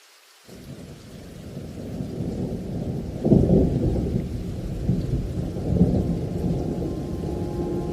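Thunder rumbling with rain, the sound swelling in about half a second in and loudest a little after three seconds, with further rolls near five and six seconds.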